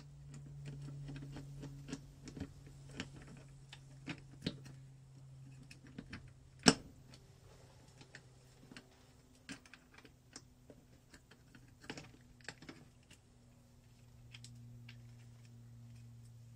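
Metal engine parts clicking and clinking as a clutch basket is handled and fitted over the gearbox shaft in an open engine casing: irregular light clicks, with one sharp knock about seven seconds in. A low steady hum sits underneath.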